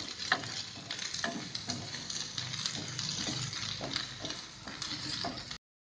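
Chopped onion and green garlic sizzling in hot oil in a non-stick frying pan while a spatula stirs and scrapes through them. The sound stops abruptly near the end.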